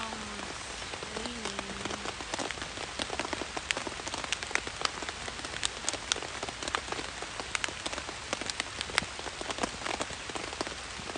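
Rain falling on a Coleman dome tent, heard from inside: a steady hiss with many sharp taps of single drops on the fabric.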